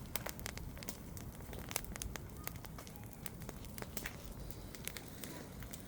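Bonfire crackling, with frequent irregular sharp pops over a low steady rumble.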